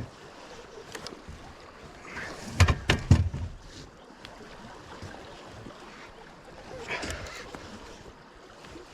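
Knocks and clatter aboard a fishing boat: four or five sharp knocks in quick succession about two and a half to three seconds in, and a softer burst near seven seconds, over a steady background hiss of water and boat.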